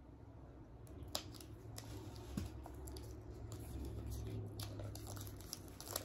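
A wrapped tarot-style card deck being unwrapped by hand: scattered snips, clicks and crinkles of the wrapping, over a low rumble of handling.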